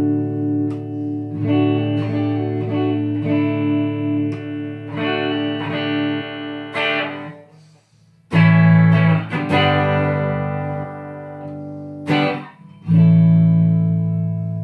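Fake Fender electric guitar on its bridge pickup, chords strummed and left to ring. There is a short pause about halfway through, then two hard strums a few seconds apart that each ring out.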